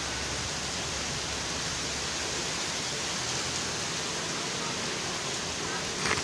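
Steady rain falling, an even hiss, with one short sharp tap just before the end.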